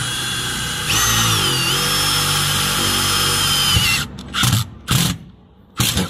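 Cordless power driver driving a self-drilling screw through an aluminium solar mounting rail into the roof's steel: a steady motor whine that grows louder and shifts pitch about a second in as the screw bites, then stops about four seconds in. Three short bursts follow near the end.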